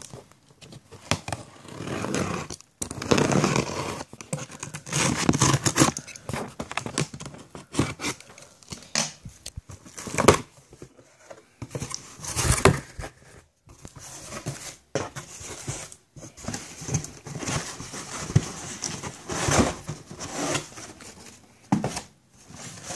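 USPS Express Mail cardboard shipping box being torn open and handled: irregular bursts of tearing, crinkling and scraping cardboard and paper, loudest about ten and twelve and a half seconds in.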